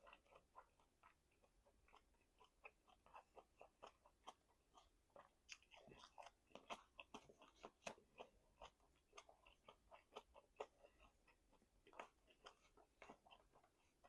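A person chewing meat with the mouth, faint and steady, made up of many irregular short clicks and smacks, several a second.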